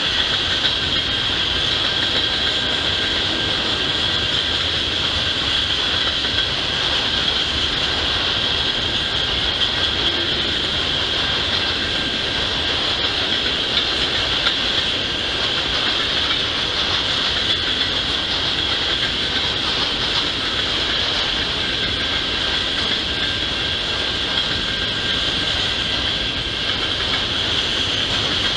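A long freight train's cars rolling past steadily, wheels running on the rails, with an even high-pitched hiss over a low rumble.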